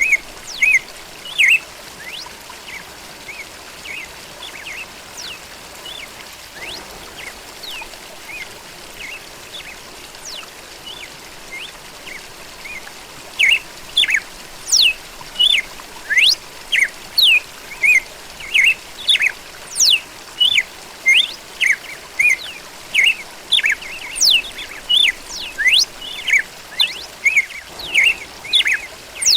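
Songbirds chirping and singing over a faint steady hiss. The calls are scattered at first, then about thirteen seconds in a run of loud, quick chirps starts, about two a second.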